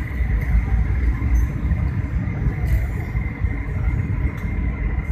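Airliner cabin noise during the approach: a steady low rumble of the engines and rushing air, with a faint steady high whine.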